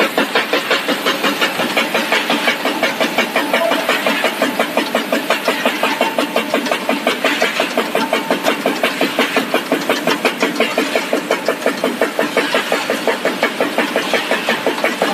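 Snack-stick extrusion and cutting line machinery running, a steady mechanical clatter that pulses evenly about four times a second.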